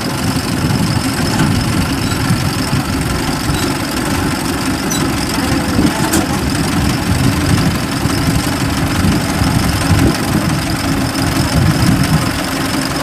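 Diesel engines running steadily: a small tracked tractor creeps down onto a steel ramp bridge, with Kubota DC70 combine harvesters running close by.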